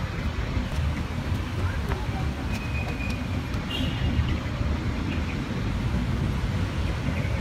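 Steady low outdoor rumble of background noise, with a couple of faint short high tones about two and a half and four seconds in.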